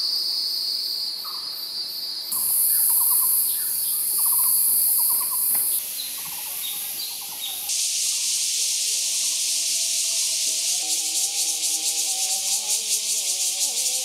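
Summer forest ambience of shrilling insects, which changes abruptly with each cut. Short repeated bird calls sound in the first half. From about eight seconds a louder, rapidly pulsing insect drone takes over, and soft sustained music comes in near the end.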